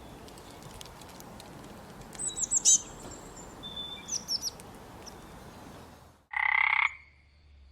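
Animal calls: quick high chirps like bird song over a steady outdoor hiss, then a short loud pitched call lasting under a second near the end.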